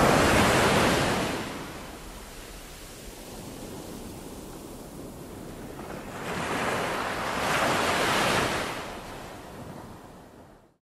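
Ocean waves washing in twice: a swell of surf at the start, a quieter stretch, then a second swell about seven seconds in that fades out to nothing.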